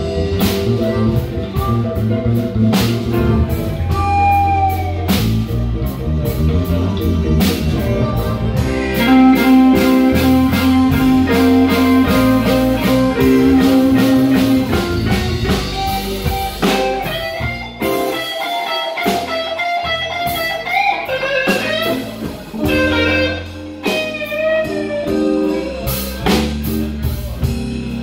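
Live blues band jamming: electric guitar playing over drums and bass, with bent notes. The low end drops out briefly about two-thirds of the way through.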